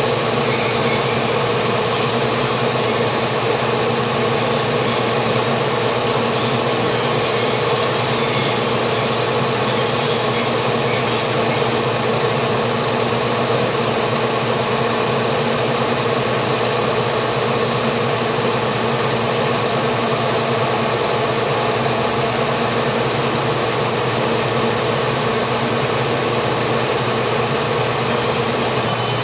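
DEL SRC overcapper with its IVCL cap loader and can conveyors running: a steady, even mechanical hum with a faint high-pitched whine over it.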